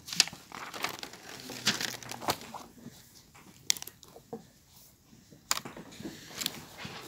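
Chalk writing on a blackboard: irregular sharp taps and short scratching strokes, with a brief pause part-way through.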